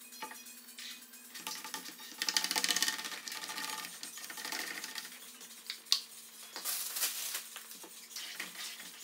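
Plastic card squeegee scraping across wet window film on the glass panels of a garage door, with a fast rattling chatter about two seconds in and a sharp click near six seconds.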